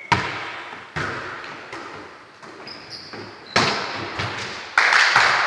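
Volleyball being struck by hands and arms in play: several sharp smacks roughly a second apart, each echoing in a large sports hall, the loudest near the end.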